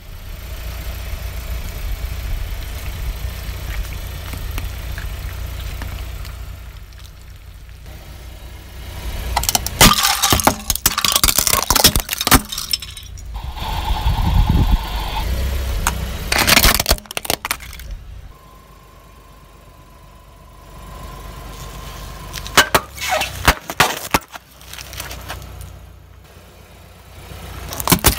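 A car tyre rolling slowly over toys and plastic objects on asphalt, crushing them: a low engine rumble, then several bouts of loud cracking and crunching as the plastic breaks.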